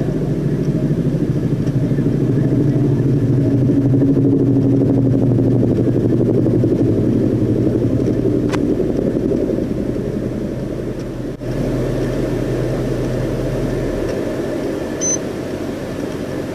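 Steady low rumble of a motor vehicle's engine and road noise, with a brief break about eleven seconds in and a short high beep near the end.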